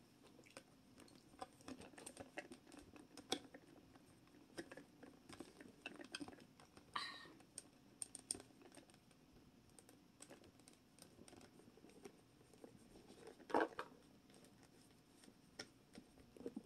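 Hard plastic toy parts clicking, tapping and scraping against each other as a small figure is worked onto a Treasure X Dino Gold toy dinosaur's saddle: faint, scattered small clicks, with one louder knock about two-thirds of the way through.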